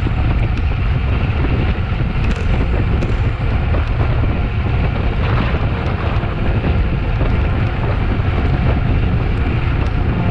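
Steady wind rumble buffeting the microphone during a ride: a loud low roar with no clear engine note or tune.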